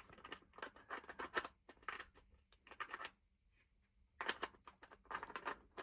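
Small hobby parts being handled by hand: a run of light clicks and scratchy rustles, a pause of about a second, then more of the same.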